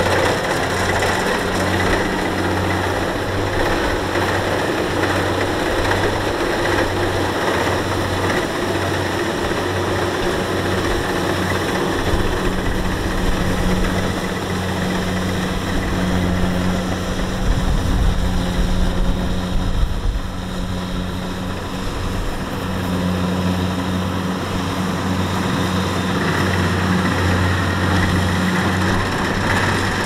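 Rice combine harvester's diesel engine running steadily, its low hum pulsing in a regular beat, with a heavier rumble swelling briefly a little past the middle.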